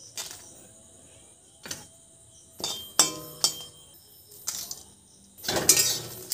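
Flat metal spatula clinking and scraping against an empty metal kadai while dry red chillies and bay leaves are stirred in it without oil: a string of sharp clinks, some briefly ringing, and a longer scrape about five and a half seconds in that is the loudest.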